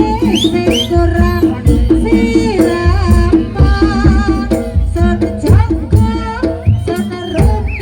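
Folk music of the kind that accompanies a bantengan procession: steady drumming and percussion under a pitched melody with sliding notes, playing without a break.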